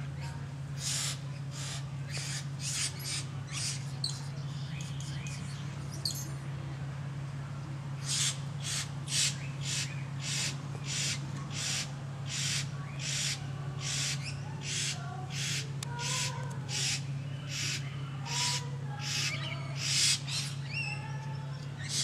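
Great bowerbird giving a run of short, harsh, hissing rasps, two or three a second: a brief bout near the start, then a longer bout after a pause of a few seconds. A steady low hum runs underneath.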